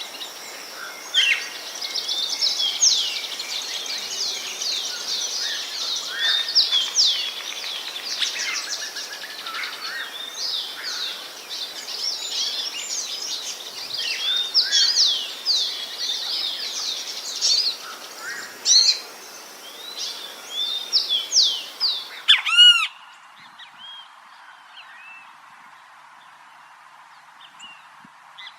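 Many small birds chirping and singing together in a dense chorus. About three quarters of the way through it cuts to a different recording: a quick run of repeated arching calls, then a few sparse calls over a quieter background.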